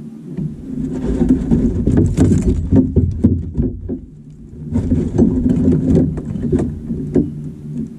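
A boat's motor running steadily under two runs of rattling and knocking, each about three seconds long with a short pause between, from reeling in and landing a hooked trout.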